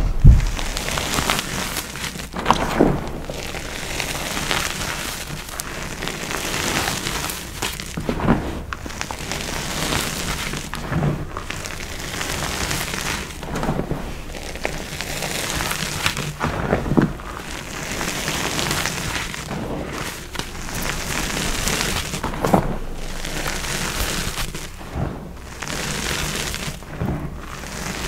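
Soft, crisp powder-coated blocks being crushed and squeezed by gloved hands: a continuous crackling crunch, with a louder crunch every few seconds as the blocks give way.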